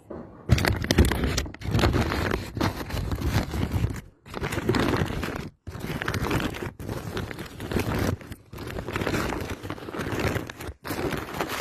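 Rice grains and a woven plastic sack rustling and crunching as they are handled close to a phone's microphone, with short breaks about four and five and a half seconds in.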